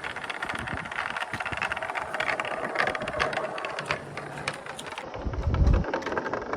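Marbles rolling down a wooden slope course: a continuous rolling rattle made of many small clicks and knocks on the wood. A brief low rumble of wind on the microphone comes about five seconds in.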